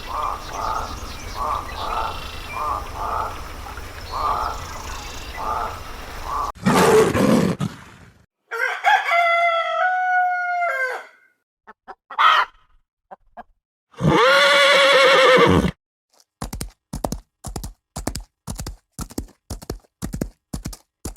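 A run of animal sound effects one after another: a rhythmic pulsing call for the first several seconds, a loud low burst, then a rooster crowing in stepped pitches, a short call, and a long loud call. In the last few seconds, horse hooves clip-clop at about two beats a second.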